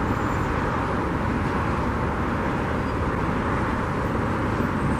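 Steady wind noise on the microphone, mixed with the even roar of nearby road traffic.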